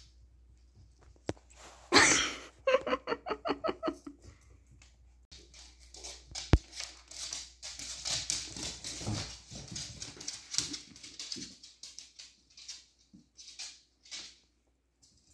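Dogs at play on a wooden floor: a sharp loud cry about two seconds in, then a quick run of short high yips, about six a second. After that come scattered clicks and scuffling, likely claws on the floorboards.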